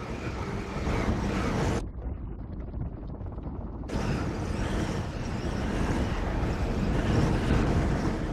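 Film trailer sound effects from the overhead channels: a deep, dense rumbling noise. About two seconds in it drops to a duller, thinner rumble, then swells back fuller about four seconds in and builds toward the end.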